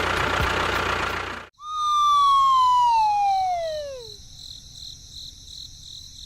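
A loud rushing noise that cuts off suddenly, then one long whistle tone sliding steadily downward in pitch for about two and a half seconds: a comic falling-whistle sound effect.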